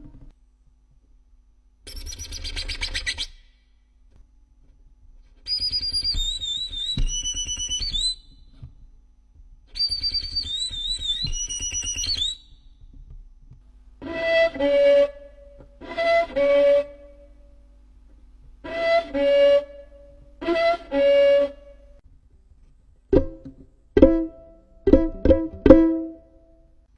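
Violin played for a string of separate sound effects: a short scratchy bowed noise, then high wavering, gliding notes twice, then pairs of short bowed phrases. Near the end come several sharp plucked pizzicato notes.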